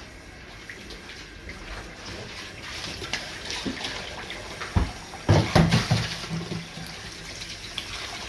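Water running from a kitchen tap, with a cluster of knocks about two-thirds of the way through.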